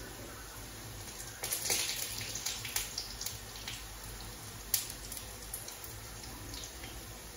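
Sigara böreği frying in hot oil: sizzling with irregular crackles and pops that start about a second and a half in, loudest for the next couple of seconds, with one sharp pop near the middle, then settling.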